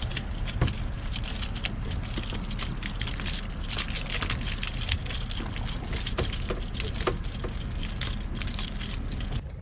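Water splashing and lapping at a small fishing boat's side over a steady low rumble, with a scatter of sharp crackling clicks.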